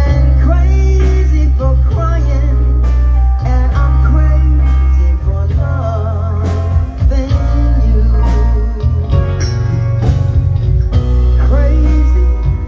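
Band playing a song with a singer, over a heavy bass line and regular drum hits.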